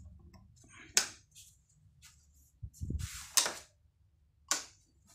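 Handling noise: a few short clicks and knocks with some light rustling as a phone camera is moved about.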